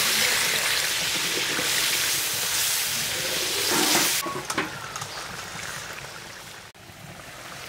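Ground spice masala sizzling in hot oil in a cooking pan as it is fried down, with a few scrapes and knocks of stirring about three to four seconds in. Just after that the sizzle drops away suddenly and it goes much quieter.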